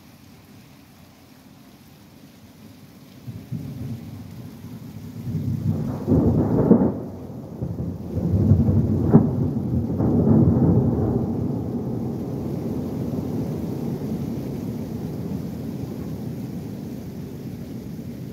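A long roll of thunder over steady rain. The rumble builds about three seconds in, peaks with a few sharp cracks around the middle, then rumbles on, slowly fading.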